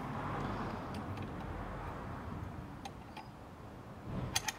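A low rushing noise that swells and slowly fades, then a quick run of sharp metallic clicks near the end as the air fitting on the rifle's breech is handled.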